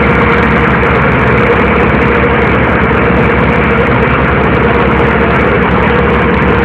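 Boat's engine running steadily and loudly, with an even, rapid low throb under a constant hum.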